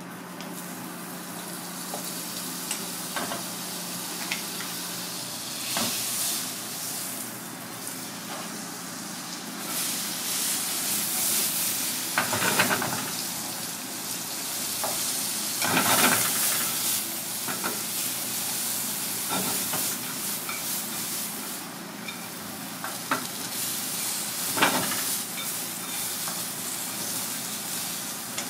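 Butter and sliced vegetables sizzling in a cast-iron wok over a gas flame as they are stirred. The sizzle grows louder about ten seconds in, with a few sharp scrapes and knocks against the pan.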